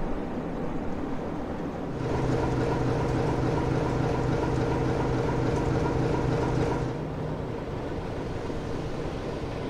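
Diesel engine of NSU-class diesel-electric locomotive NSU 52, a Sulzer six-cylinder, running at idle with a steady pitched drone. It grows louder and more clearly pitched about two seconds in, then eases back about seven seconds in.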